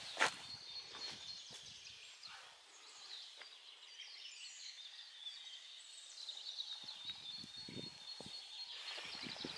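Small birds chirping and trilling high overhead, with a few footsteps near the start and again in the last few seconds.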